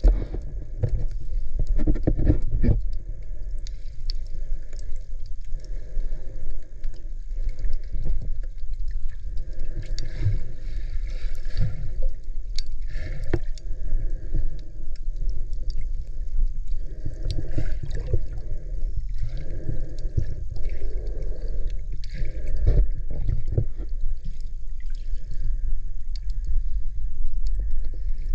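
Water sloshing and gurgling around a submerged camera, heard muffled underwater as a low rumble that swells and fades every second or two, with scattered sharp clicks.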